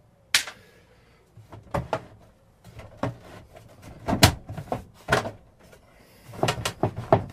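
Plastic rear housing of a Philips CM8833-II CRT monitor knocking and clicking as hands push and tug at it to work it loose: a string of sharp knocks about a second apart, with a quick cluster of them near the end.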